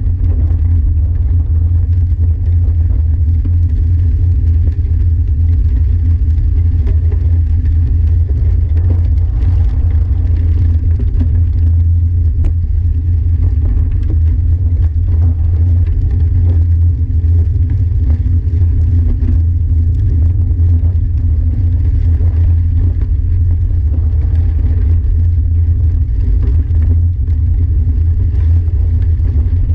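Bicycle rolling along a gravel trail, heard through a bike-mounted Garmin VIRB action camera: a loud, steady low rumble of wind and tyre vibration on the microphone, with faint crunching ticks of gravel under the tyres.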